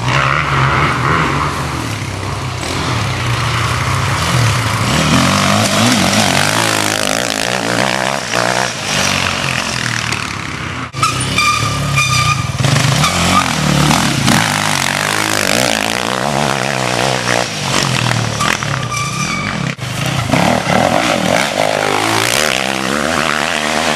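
Dirt-bike engines revving hard as off-road motorcycles race past on a forest trail, the engine note climbing and dropping with each gear change and pass.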